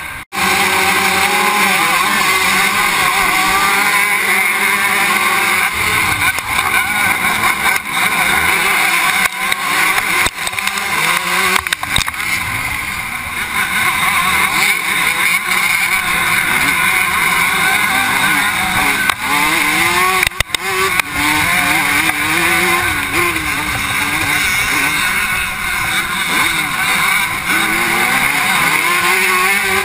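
A pack of vintage 125cc two-stroke motocross bikes racing off the start and through the first turn, heard from onboard one of the bikes. The engines rev hard, rising and falling in pitch as the riders shift and throttle.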